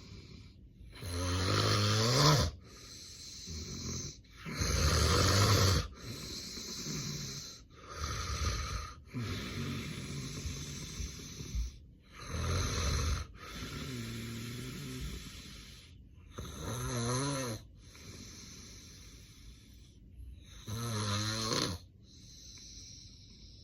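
Heavy snoring from a sleeping man with severe sleep apnea: about seven loud snores, each a few seconds apart, with noisy breathing in between.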